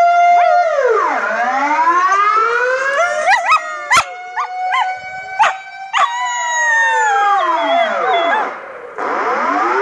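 Air-raid warning siren (Dutch luchtalarm) wailing, its pitch falling about a second in, rising slowly, then falling and rising again near the end. A border collie puppy howls along with it and gives short wavering yelps in the middle.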